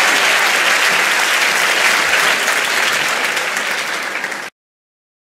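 Live audience applauding after a stand-up comedy punchline, tapering slightly, then cut off abruptly about four and a half seconds in.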